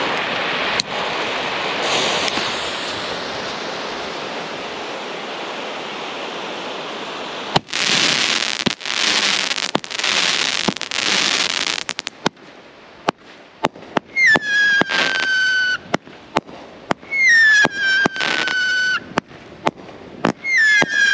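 A 200 g Fireworks Complex 'God's Angel' firework cake firing. After several seconds of steady hiss, it goes off about seven seconds in with a run of loud hissing rushes of mine shots. Sharp cracking reports and three whistling tails follow, each whistle dipping slightly in pitch and holding for about a second and a half.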